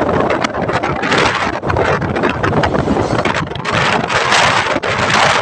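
Wind rushing and buffeting hard on the microphone of a moving vehicle, with vehicle and road noise underneath.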